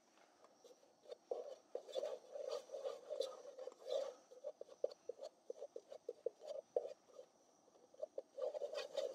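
Spatula scraping and stirring a flour-and-oil roux around the bottom of a camping pot on a gas camp stove, in quick irregular strokes that start about a second in, pause briefly near the end and resume.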